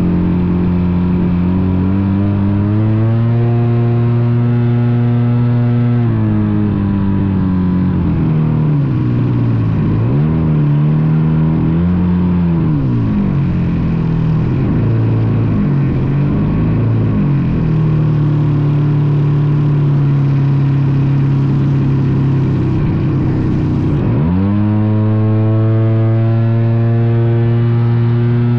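RC airplane's motor and propeller heard from a camera mounted on the plane, a loud steady drone whose pitch moves with the throttle. It rises about three seconds in, falls back, wavers up and down for several seconds, holds steady, then drops sharply near the end and climbs again.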